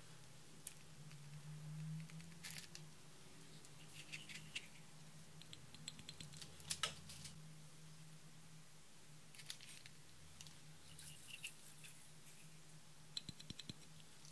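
Faint, scattered clicks and taps of small plastic glitter containers being handled and glitter sprinkled into a glass bowl of clear slime, with a quick run of ticks near the end as a container is shaken. A faint steady low hum lies under it.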